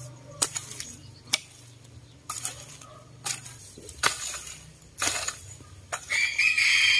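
Hand hoe chopping into dry, stony soil, its blade striking about once a second. Near the end a chicken gives a loud call lasting about a second.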